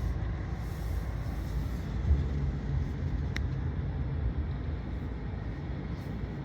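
Vehicle driving: a steady low rumble of engine and road noise.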